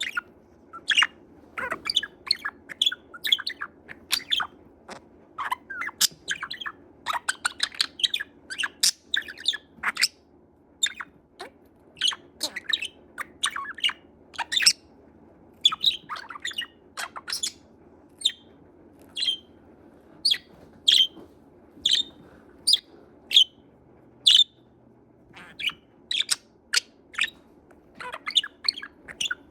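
Budgerigar chirping and chattering in a long run of short, sharp chirps, several a second, with short pauses between bursts.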